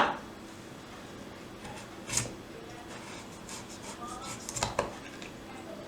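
Kitchen handling sounds from food preparation: a short scrape about two seconds in, then a quick cluster of light clicks and knocks near the end.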